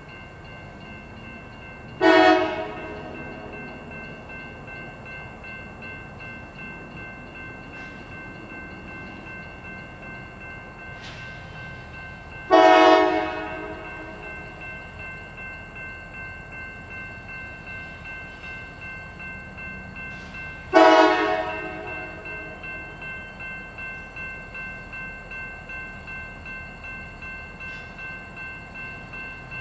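Diesel freight locomotive approaching, sounding three short horn blasts several seconds apart over the steady rumble of the train, with the locomotive bell ringing steadily underneath.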